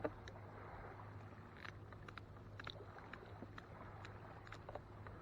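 Scissors snipping while trimming cut bait, heard as scattered faint clicks after one sharp knock at the very start, over a faint steady low hum.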